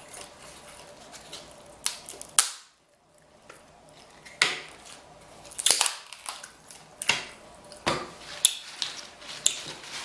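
Crab leg shells cracking: a string of sharp snaps, about eight, irregularly spaced, with a short quiet gap after the first two.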